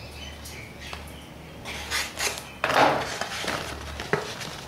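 Paper Priority Mail envelope being handled and torn open by hand: rustling and ripping paper, with louder rips about two and three seconds in.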